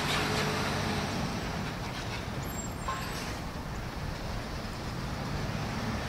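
Steady low rumble of a distant engine over outdoor background noise.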